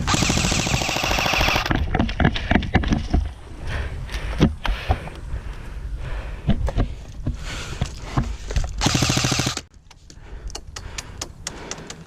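Airsoft electric gun firing full-auto: a rapid, even burst of shots lasting almost two seconds, with scattered single cracks and knocks, then a second, shorter burst about nine seconds in.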